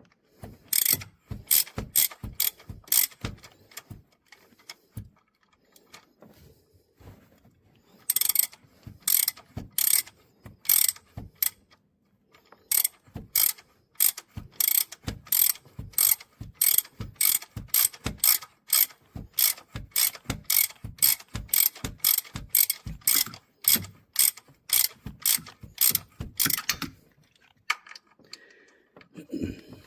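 Hand ratchet wrench being worked back and forth in quick strokes, about two a second, its pawl clicking on each stroke. The strokes come in three runs with short pauses between.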